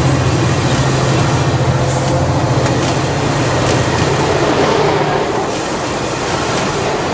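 A Caltrain commuter train of bilevel gallery passenger cars passing close by, its wheels rumbling on the rails. A steady low hum under the rumble fades out about two-thirds of the way through.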